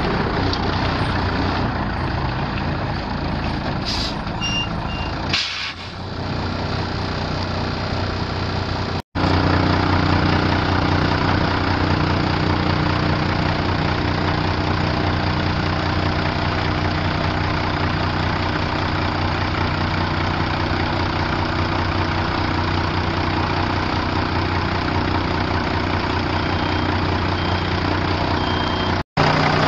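Fire truck's Cummins 6CTA8.3 six-cylinder turbo diesel running steadily, with a strong hiss over the engine hum. Near the end come three short high beeps about a second apart.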